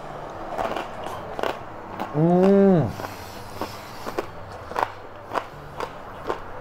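Crackling pork skin crunching as it is chewed: a run of short, crisp cracks. About two seconds in, a man's loud drawn-out hum, rising then falling in pitch, lasting under a second.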